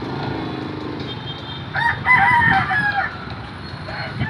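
A rooster crows once, loud, a little under halfway through, over a steady low background rumble.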